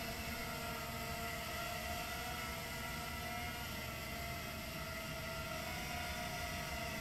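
Small quadcopter's four brushless 1306 motors with three-blade 3-inch propellers whirring steadily in flight, a buzzing whine whose pitch shifts a little as the throttle changes.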